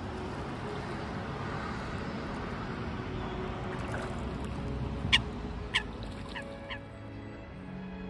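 Waterfowl on a lake over a steady wash of background noise, with four short sharp bird calls about five to seven seconds in, the first the loudest. Faint music runs underneath.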